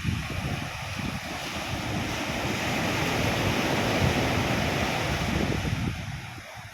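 Sea surf: a wave breaking and washing up the beach, its hiss swelling for a few seconds and fading near the end. Wind buffets the microphone with a low rumble.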